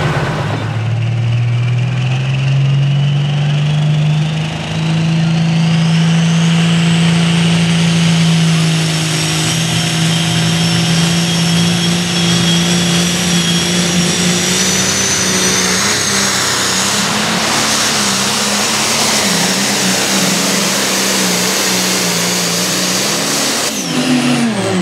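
Turbocharged diesel engine of a John Deere 6030 Limited Pro Stock pulling tractor running at full power while dragging the weight sled. Its turbo whine climbs to a high whistle over the first several seconds, and the engine note holds steady under load. The sound breaks off and changes near the end.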